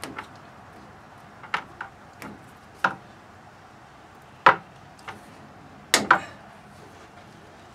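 Scattered sharp plastic clicks and taps, about half a dozen, with the loudest about four and a half seconds in and a quick pair about six seconds in. They come from black drip irrigation tubing being handled and fitted over a white plastic bucket.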